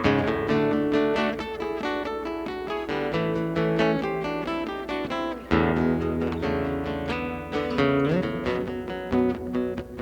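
Guitar playing the instrumental intro of a blues song, plucked notes over a steady low line, with a note sliding upward near the end.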